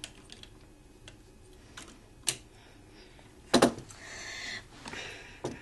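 Lego bricks clicking as a plastic wing is pressed back onto a Lego model plane: a few sharp snaps, the loudest about three and a half seconds in, followed by a short rustle of plastic being handled.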